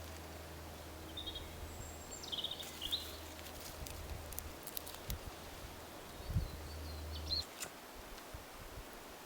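Outdoor ambience with a few short bird chirps over a steady low hum that stops near the end, broken by a handful of sharp clicks and two dull thumps.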